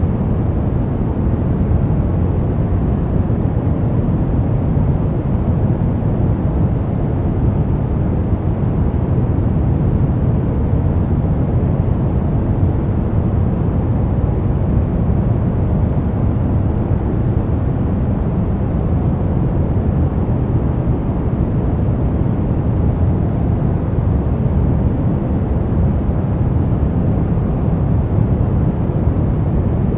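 Steady brown noise: an even, deep rumbling hiss, strongest in the bass and thinning toward the treble, unchanging throughout.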